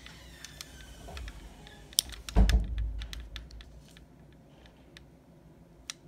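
Small clicks and taps from handling an acrylic nail brush between the fingers and long acrylic nails, with a sharper click about two seconds in and a dull thump just after it.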